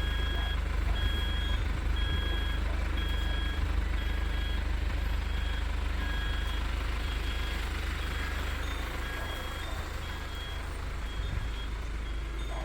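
Truck reversing, its backup alarm beeping at an even rate over the steady low rumble of its running engine as it turns around.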